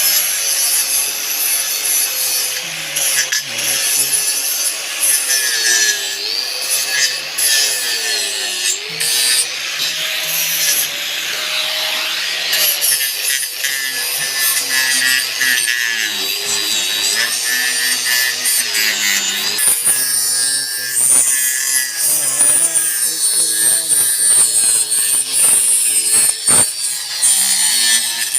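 Electric power cutting tool cutting continuously for the whole stretch, a harsh grinding hiss over a motor whine that repeatedly dips and recovers as the tool bites and eases off.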